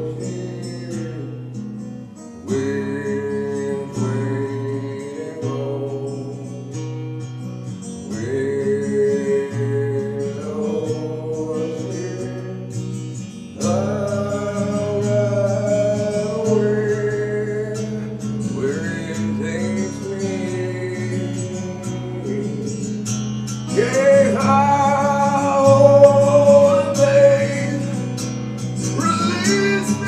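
Acoustic guitar strummed steadily while a man sings into a microphone through a vocal effects pedal; the voice gets louder and holds a long note a few seconds from the end.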